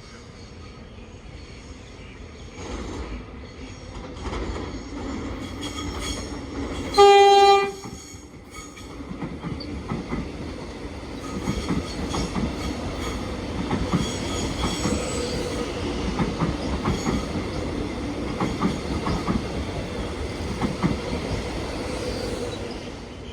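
Alstom X'Trapolis electric suburban train approaching and giving one short horn blast, the loudest sound, about seven seconds in. It then runs past with wheels clicking over the rail joints until the noise drops away near the end.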